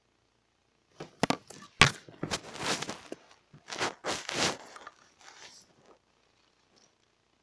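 Clear plastic hamster ball being handled and rubbed right at the microphone: a couple of sharp clicks, then several seconds of scraping and rustling.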